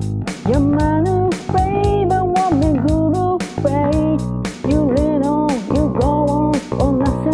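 Electric bass guitar playing a song's bass line, with a shaker keeping a steady beat of about four strokes a second and a voice singing the melody over it.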